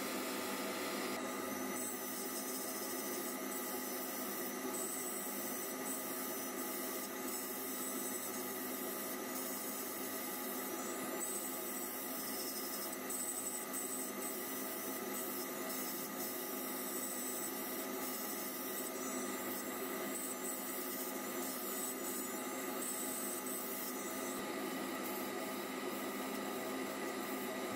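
A small handheld power sander whines as it sands the flat faces of a square walnut box lid, starting about a second in and stopping near the end. Before and after it, sandpaper is held against the lid as it spins on the wood lathe, over a steady machine hum.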